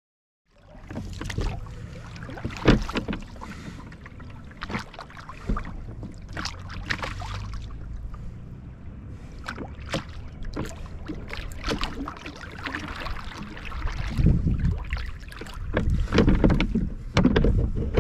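Oars being rowed in the oarlocks of a small rowing dinghy: repeated knocks and clunks with water sounds at each stroke. It starts about half a second in and grows louder near the end.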